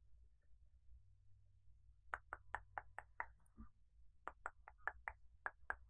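Near silence for about two seconds, then quick tongue clicks close to the microphone, about five a second, in short runs with brief pauses between.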